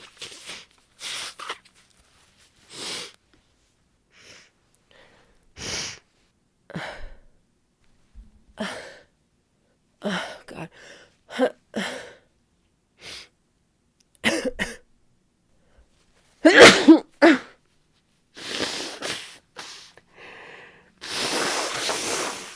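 A woman with a head cold sniffling over and over, with short catching breaths, then a loud sneeze about two-thirds of the way in. Near the end comes a long blow of her stuffed nose.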